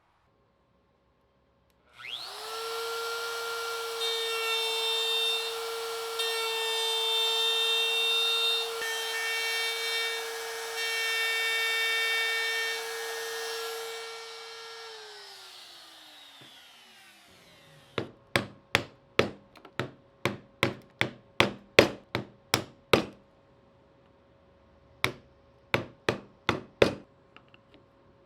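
A high-speed woodworking power tool starts and runs steadily while cutting wood for about thirteen seconds, then switches off and spins down with a falling whine. Then comes a quick run of about a dozen sharp knocks on wood, and after a short pause five more.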